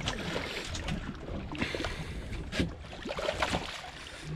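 Steady wash of sea water against the side of a small boat, with two brief sharp sounds about one and a half and two and a half seconds in.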